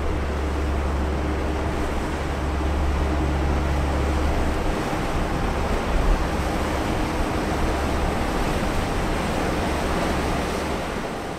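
Steady low hum of a large container ship's machinery, with a wash of water and wind noise over it. The hum drops away briefly about halfway through, and there is one dull low thud about six seconds in.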